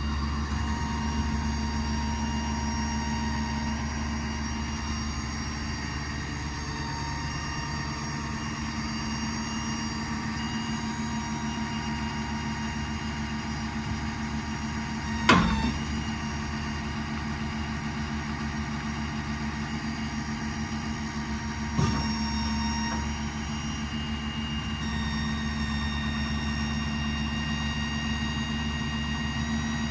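The 6.7 L Power Stroke diesel of a Ford F-550 runs steadily at the raised idle that the engaged PTO sets, with a steady hum and a high whine. There are two sharp knocks: a loud one about halfway through and a smaller one some seconds later.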